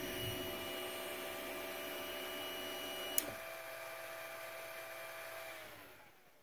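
Ender 3 Pro 3D printer's fans and motors humming steadily. A sharp click comes a little past three seconds in as the bed reaches the micro switch that cuts the mains power. The fans then wind down and fall quiet near the end.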